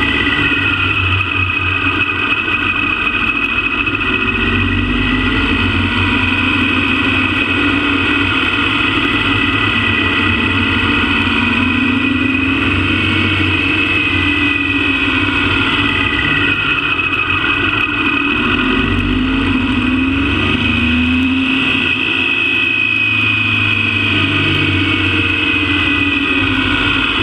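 Motorcycle engine running as the bike rides along, its pitch rising and falling again and again as the rider accelerates and eases off, with a steady high whine above the engine note.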